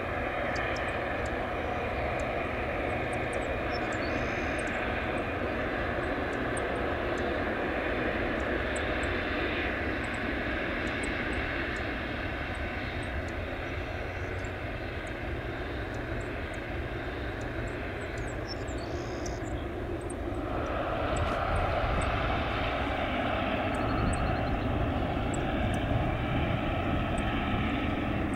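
Boeing 777-300ER's GE90-115B turbofan engines running as the airliner taxis onto the runway: a steady jet rumble and hiss that grows louder about two-thirds of the way in.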